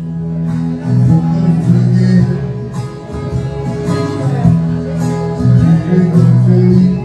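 Live acoustic guitar played through a small PA, chords strummed over strong low bass notes.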